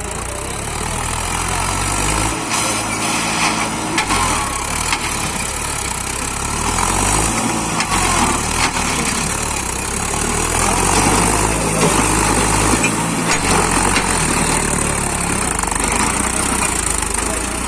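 Tractor engine running at a steady speed with a low hum.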